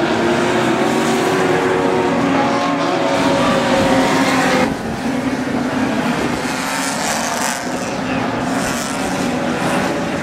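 Engines of several banger racing cars running and revving hard around the track. The sound changes abruptly about halfway through, dropping slightly in level.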